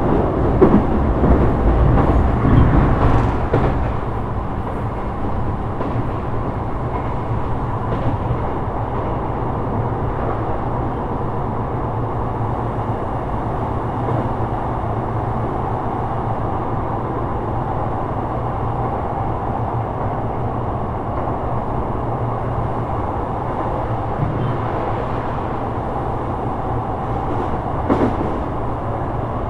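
Sotetsu 12000 series electric train running at speed, a steady rumble of wheels on rail. It is louder with clattering in the first few seconds, then settles to an even run with a faint steady whine, and a single sharp click comes near the end.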